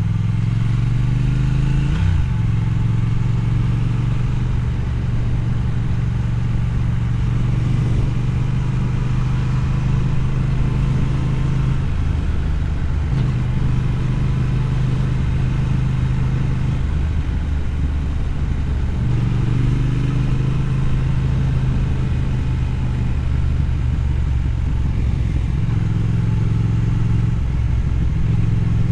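Triumph Thruxton's parallel-twin engine running through a Motone X-pipe exhaust. Its engine note holds steady for stretches and then steps up or down in pitch several times as engine speed changes, with a brief rise about two seconds in and again around twenty seconds.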